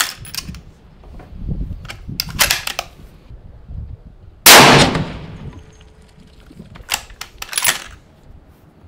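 A single 6.5 Creedmoor bolt-action rifle shot about halfway through, the loudest thing by far, with a ringing tail of about a second. Sharp metallic clicks and clacks of the bolt being worked come before the shot and again about three seconds after it.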